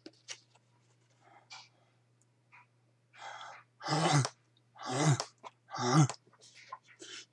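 A man's voice: a breathy exhale a little after three seconds in, then three loud, breathy open-mouthed syllables about a second apart.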